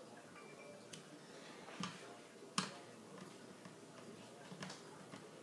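Faint, irregular clicks and taps of a screwdriver and plastic parts as a battery is screwed back into a Swiffer Sweeper Vac's plastic housing, with a sharper click a little under two seconds in and the loudest one about two and a half seconds in.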